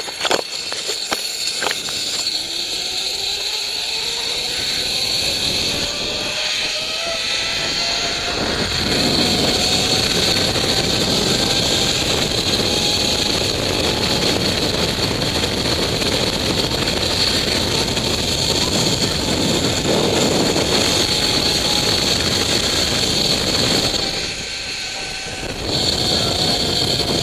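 Zip-line trolley pulleys running along a steel cable: a few clicks at the start, then a whine that rises in pitch as the rider picks up speed and holds steady, over loud rushing wind. The noise dips briefly near the end.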